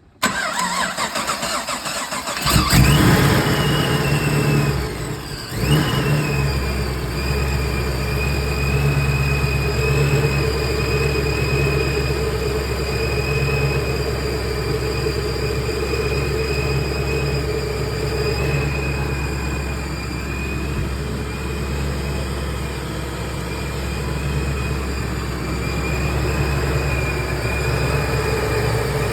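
The 2006 Pontiac GTO's Procharged LS2 V8 cranks for about two seconds, catches and revs, dips briefly, then settles into a steady idle with a thin high whine over it. This is the first start after a cracked cylinder was sealed with JB Weld.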